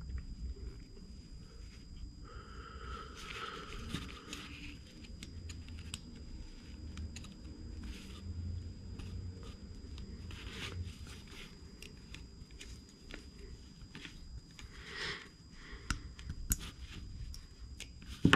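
Small handling noises as clutch shoes and their springs are worked onto a nitro engine's flywheel by hand: faint scattered clicks and light scraping of small parts, with a sharper click near the end.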